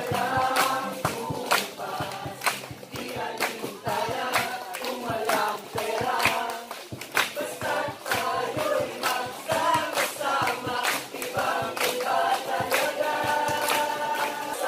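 A group of adults and children singing together, with hand claps striking roughly in time with the song.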